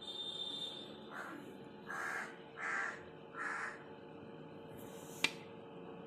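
A crow cawing, four harsh caws in quick succession, followed a moment later by a single sharp click.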